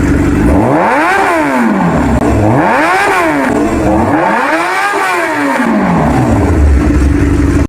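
Kawasaki ZX-10R inline-four sport-bike engine idling, then revved three times, each rev rising and dropping back, before settling to idle again.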